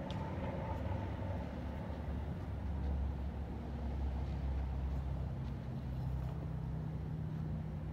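Steady low rumble of distant road traffic, with one faint click right at the start.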